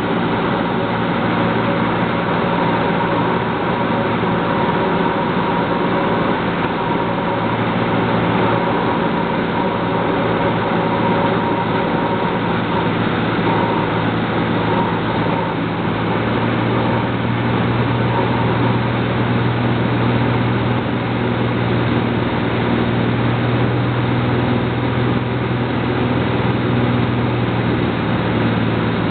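Cessna Turbo 206's turbocharged piston engine and propeller running steadily, heard inside the cabin during final approach and landing. A low hum in the engine sound grows stronger about halfway through.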